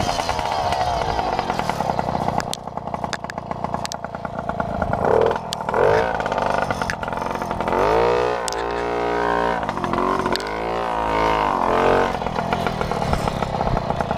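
Babetta moped's small two-stroke engine revved up and down in about five swells, with sharp clattering knocks in the first few seconds.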